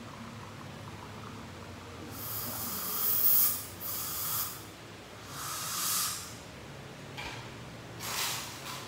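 A run of hissing air bursts, each swelling and fading over a second or two, about four in all and a couple of seconds apart. The first starts about two seconds in and is the loudest.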